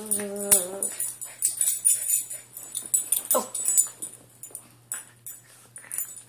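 Small dog whining: a drawn-out whine in the first second and a short, falling whine about three seconds in, over rustling of bedding as it is petted.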